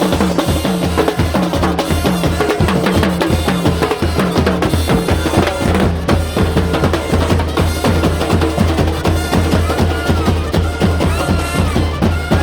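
Loud carnival parade music: fast, dense drumming over a steady deep bass, with a few held higher notes near the end.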